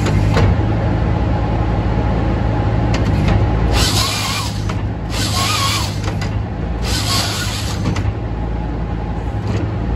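An engine running steadily. About four seconds in, three hissing bursts of roughly a second each break over it.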